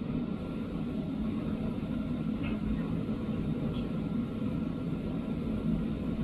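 Steady low rumble of city background noise, like distant traffic, with two faint short high chirps about two and a half and almost four seconds in.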